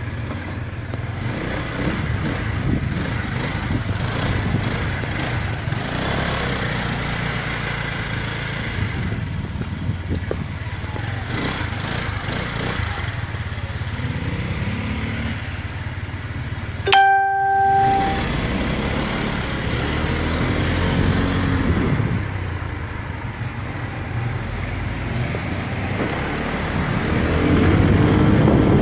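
Motorcycle engine running while riding in street traffic, with wind on the microphone and engines rising and falling in pitch. About two-thirds of the way through, a short horn blast stands out as the loudest sound.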